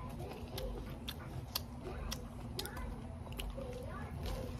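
Crispy bánh xèo wrapped in fresh leafy greens being bitten and chewed, with irregular sharp crunches.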